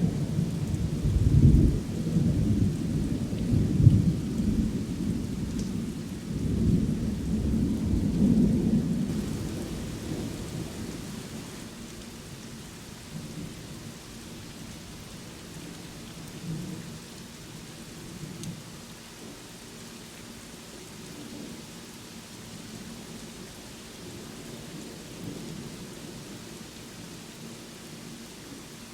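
Thunder rumbling over steady rain: deep rolling surges in the first half that fade away about ten seconds in, leaving the even hiss of rainfall.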